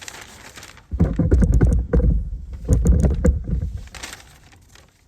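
Hands rummaging through soil in a container while digging out potatoes: rustling and scraping with heavy bumping and knocking from about a second in, dying away near four seconds.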